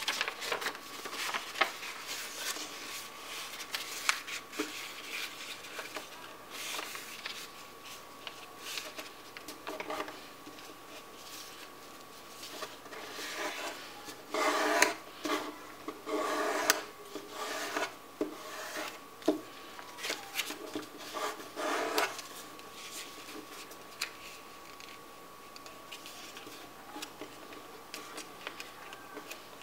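A sheet of paper being folded by hand: irregular rustling and rubbing as fingers press and scrape along the creases, busiest in the middle and sparser near the end.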